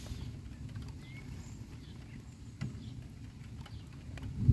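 Low, uneven rumbling of a thunderstorm, with faint bird chirps and a few sharp clicks over it. A louder low thud comes right at the very end.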